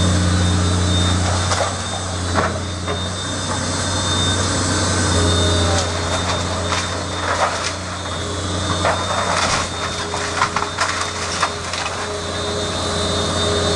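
Heavy demolition machinery's engine running steadily, with irregular cracks and crunches of wood breaking, thickest in the second half.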